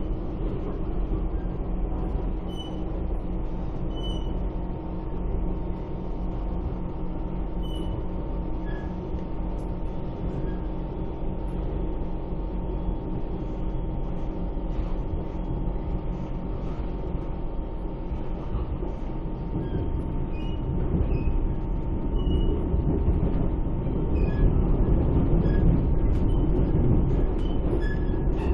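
Siemens C651 metro train running at speed, heard from inside the carriage: a steady rumble of wheels on rail and running gear with a constant hum over it, growing louder over the last few seconds.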